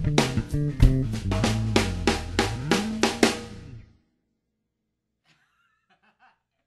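Rock-style background music with a drum kit and guitar, with regular drum hits, fading out and stopping about four seconds in. Near silence follows.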